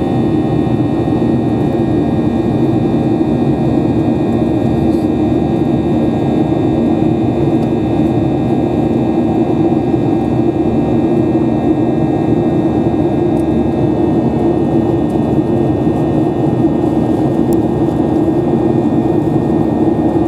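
Boeing 737-800's CFM56-7 turbofan engine running steadily, heard from inside the cabin as a loud, even rush with a low hum and several steady high whining tones.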